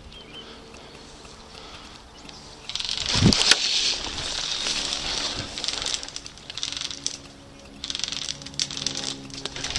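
A player scrambling down a brushy ridge: loud bouts of close rustling and scuffing with rapid clicks, and a heavy thump about three seconds in.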